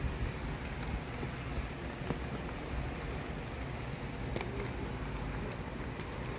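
Heavy rain pouring steadily, with scattered sharp taps of drops striking nearby surfaces.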